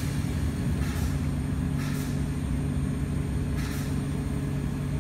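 Steady low mechanical hum of an oxygen-fed ozone generator running as ozone is fed into a column of blue ink water, with brief faint hisses about one, two and nearly four seconds in.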